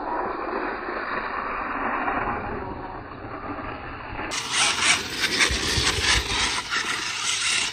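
Large-scale electric RC desert truck driving fast over loose dirt: its tyres churn and spray grit in a gritty rushing noise. About four seconds in, the noise turns close and crackly with many small clicks of flung dirt.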